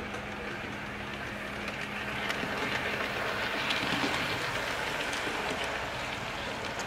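Hornby OO gauge 51xx Large Prairie model locomotive running past with its coaches: a steady whirr of the motor and wheels on the track, with light clicks. It grows louder as the train passes closest, about three to five seconds in.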